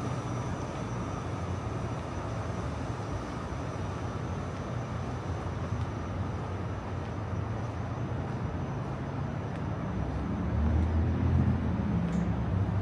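Outdoor city ambience: a steady low rumble of traffic and general urban noise. A louder low rumble builds about ten seconds in, as a vehicle passes close by.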